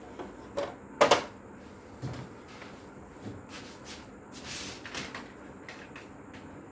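Electric typewriter mechanism clacking and clunking irregularly, with a loud sharp double clack about a second in and a longer sliding swish later on.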